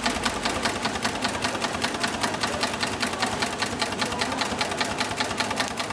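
9366HM heavy-duty long-arm zigzag sail-making sewing machine running steadily, a rapid, even clatter of needle strokes as it stitches through a thick layered fabric patch. It stops near the end.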